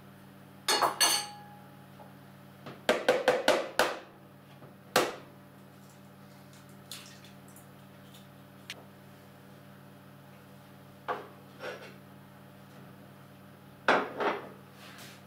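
Kitchenware clinking and knocking as ingredients are tipped from small glass bowls and a plate into a mixing bowl and the dishes are set back on the counter. There are short clatters about a second in and near the end, a quick run of five or six taps about three seconds in, a single knock at five seconds, and a few faint clicks between.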